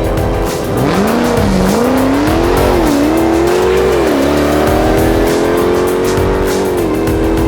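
Car engine accelerating hard on a drag run, its pitch climbing and dropping sharply at each upshift, about four times. Background music with a steady beat plays underneath.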